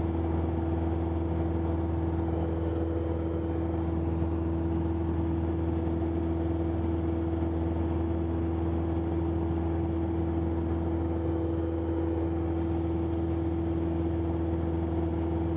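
Steady drone of a Cessna 172's piston engine and propeller, holding constant power in the climb, heard from inside the cabin.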